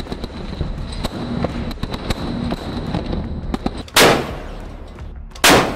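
Naval deck gun firing two rounds about a second and a half apart, each a loud sharp blast with a short rolling tail, after a few seconds of low rumble with scattered crackles.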